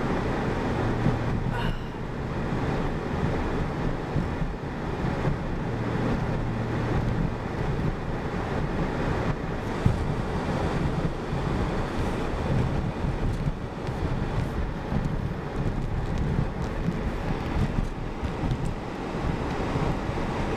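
Steady road and engine noise heard from inside a moving vehicle's cabin, a low rumble with a hiss over it.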